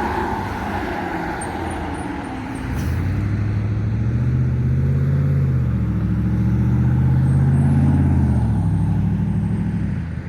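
Car engine pulling under acceleration: it picks up about three seconds in, its pitch rises and dips a couple of times, then it eases off near the end.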